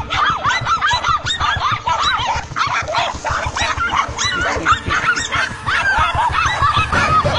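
Several dogs barking and yelping over one another, high-pitched calls coming several times a second without a break.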